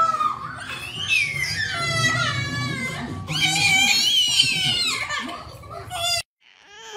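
Two babies squealing and laughing as they play together, the loudest squeals a little past the middle. It breaks off suddenly about six seconds in, and a different baby's babbling follows.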